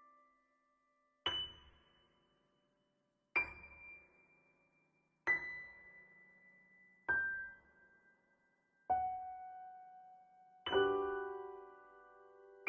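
Background music: slow solo piano, six notes struck about two seconds apart and left to ring, stepping down in pitch, with a fuller chord near the end.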